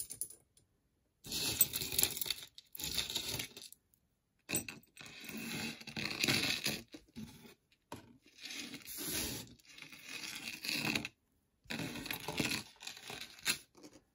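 Costume jewelry being handled and sorted out of a box: metal pieces rattling together with rustling, in several separate bursts of handling each a couple of seconds long.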